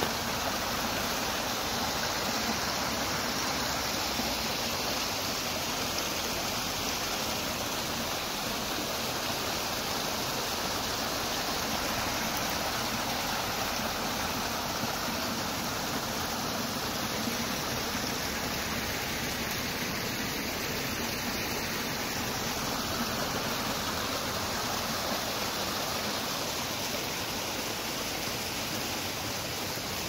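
Small mountain brook splashing down a little cascade over rocks: a steady rush of running water.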